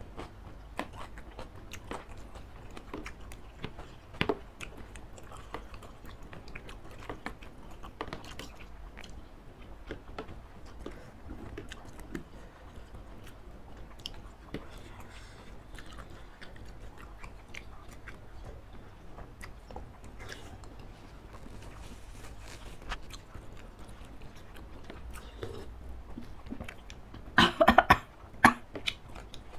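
Close-miked eating of spicy laksa noodle soup: slurping of noodles and broth, chewing, and frequent small clicks of metal spoons against the serving dish. Near the end come a few loud coughs.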